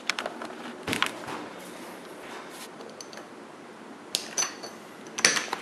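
Clicks and knocks of a brass doorknob being gripped and turned and the door latch working, with handling noise around it; the sharpest clicks come near the end.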